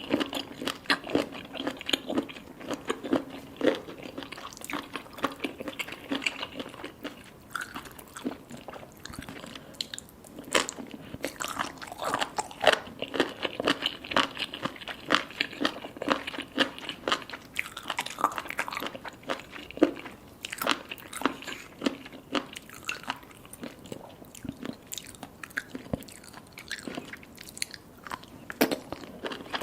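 Close-up eating sounds of a person chewing baby cuttlefish: soft, crunchy bites followed by a continuous run of small irregular mouth clicks and crackles.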